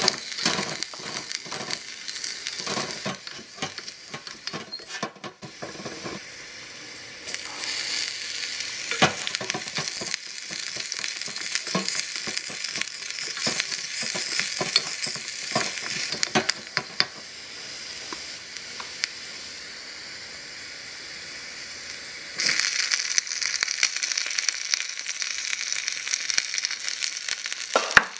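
Chopped onion and garlic sizzling in hot oil in a miniature stainless steel saucepan, with repeated scrapes and knocks of a small wooden spatula stirring against the pan. The sizzle gets louder about 22 seconds in.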